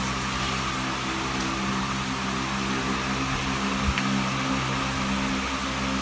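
Steady electrical mains hum with hiss, picked up through a BM800 condenser microphone and V8 sound card rig, with one faint knock about four seconds in.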